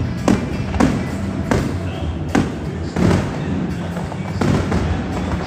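Fireworks shells bursting overhead, about six booms spread over a few seconds, with music playing loudly underneath.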